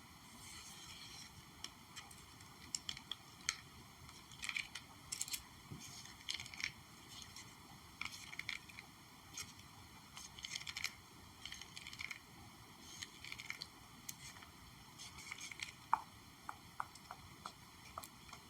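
Close-miked ASMR trigger sounds: short, soft bursts of crackling and scratching every second or two, then a run of light taps near the end.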